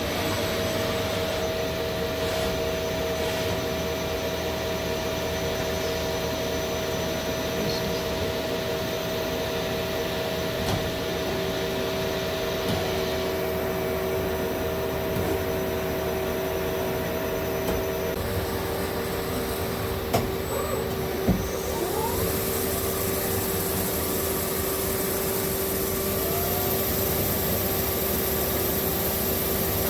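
Steady hum of running machinery in a machine shop, with several steady tones over a noisy whir, one tone dropping out about two-thirds of the way through. There are a couple of brief knocks shortly after.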